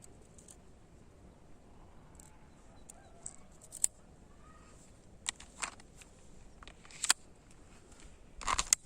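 Scattered sharp clicks from handling an airsoft pistol and its magazine while it is loaded with a plastic BB, with a quick cluster of clicks near the end.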